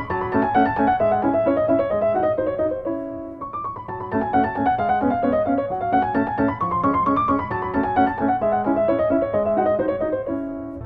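Background instrumental music: quick repeated notes under a melody that climbs and falls, the phrase coming round about every four seconds.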